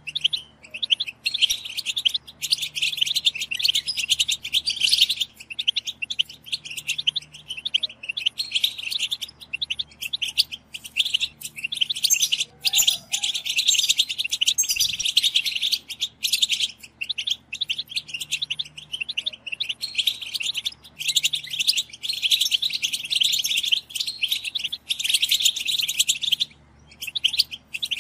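A chorus of European goldfinches giving their chattering call, a dense, rapid twittering with only brief pauses.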